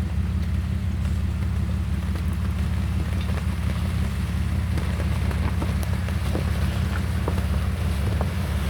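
Jeep engine running steadily, a low even hum, with scattered faint ticks and crackles over it.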